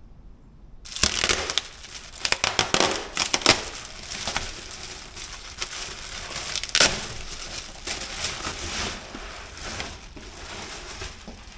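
A thick rubbery drawer liner being handled and unrolled: crinkling and rustling with scattered sharp crackles, starting about a second in and going on busily.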